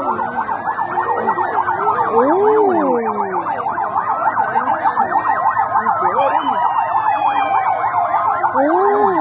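Several police motorcycle sirens sounding at once. A fast warbling yelp overlaps slow wails that rise and fall about every three seconds.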